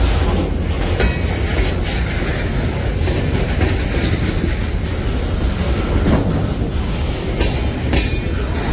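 Freight train rolling past close by: a steady low rumble with irregular sharp clicks of wheels crossing rail joints.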